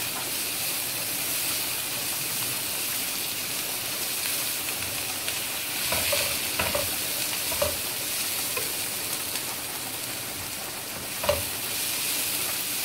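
Shredded cabbage, carrot, onion and capsicum sizzling in hot oil in a non-stick kadai as they are lightly sautéed and stirred with a plastic spatula: a steady high hiss, with a few short knocks of the spatula against the pan, the sharpest about eleven seconds in.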